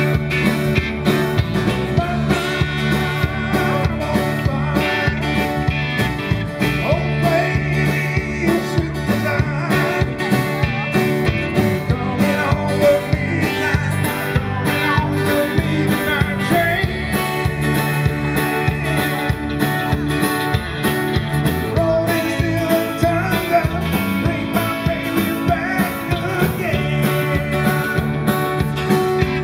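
Live band playing amplified country-rock through PA speakers: electric guitars over a steady drum beat.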